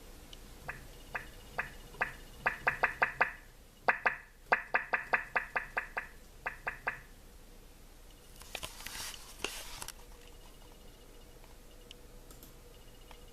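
Mac volume-change feedback clicks as the volume keys are pressed over and over: a few clicks about half a second apart, then two fast runs of about six clicks a second. A short rustling noise follows about two-thirds of the way through.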